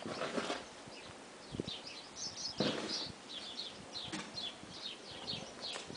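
Small birds twittering: many quick, high chirps from about a second and a half in, with a brief rustle about halfway through.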